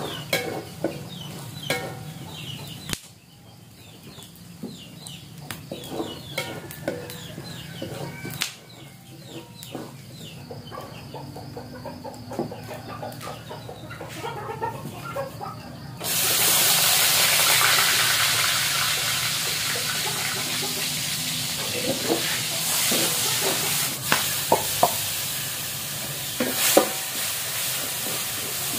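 Chickens clucking, then about halfway a sudden loud sizzle as food goes into hot oil in a wok, which keeps frying steadily. A spatula clinks and scrapes against the wok through the frying.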